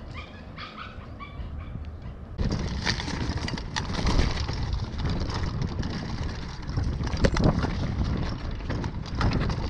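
A few faint high chirps over quiet outdoor air. About two and a half seconds in, this cuts suddenly to the loud rush of a mountain bike descending a dry dirt trail: wind buffeting the camera's microphone, tyres crunching over dirt, and the bike rattling and knocking over bumps.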